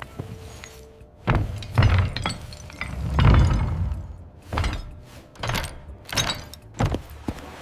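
Background music with a series of heavy thuds and crashes, about seven in all, the loudest about three seconds in.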